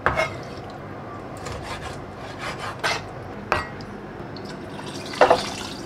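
Chef's knife chopping raw meat on a wooden cutting board: a handful of irregular knocks of the blade against the board, with a louder knock just over five seconds in.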